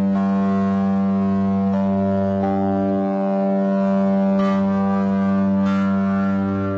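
Tuned metal tubes of a 32-note just-intonation percussion instrument, struck one at a time and left to ring, the steady tones stacking into a sustained chord. A new note comes in every second or two, and the earlier ones keep sounding.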